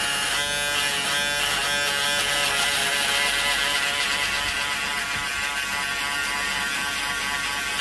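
Braun electric shaver running steadily while it shaves stubble on the chin and upper lip, its buzz wavering in the first two seconds.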